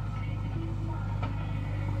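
Diesel engine of a JCB 3DX backhoe loader running steadily under load as the backhoe arm lifts a full bucket of mud.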